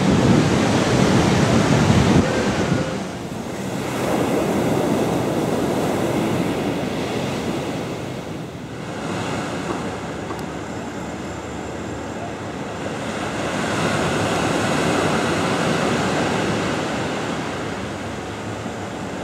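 Ocean surf breaking on a sandy beach: a steady roar of waves that swells and ebbs, loudest at the start, easing about three seconds in and again near the middle, then building once more before fading.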